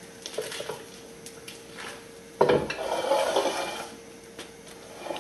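A sharp knock about halfway through, followed by about a second of crinkling plastic as a plastic bag holding tortilla dough is handled, with small clicks and taps before it and a faint steady hum underneath.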